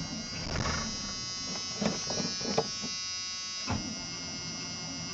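A steady, buzzing whine from the 1986 Chevy Silverado's idling engine bay, with a few short knocks and clatters over it.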